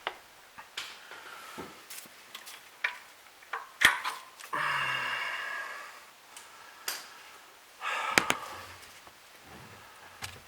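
Scattered sharp clicks and clinks of hand tools being handled, with a longer scraping rustle about four and a half seconds in and another near eight seconds.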